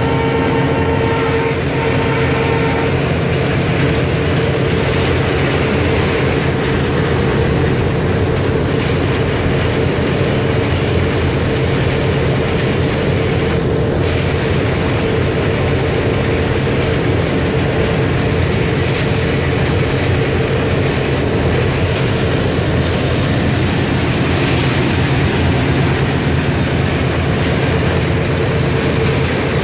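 Indian Railways diesel locomotive running at speed, heard inside its driver's cab: a loud, steady drone of engine and running gear.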